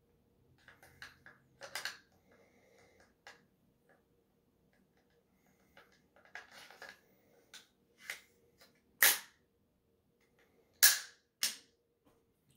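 Sharp metallic clicks and clacks from a reassembled AR-15 rifle being handled and worked, irregularly spaced, with the loudest single clacks about nine seconds in and twice near the end.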